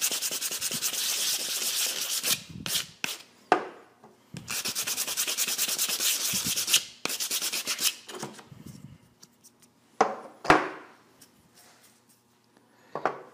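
Small 3D-printed PLA part rubbed back and forth on sandpaper by hand, roughening its mating faces for better glue adhesion. The strokes come quick and scratchy in two long runs with a brief pause between, then a few sharp knocks as pieces are handled and set down.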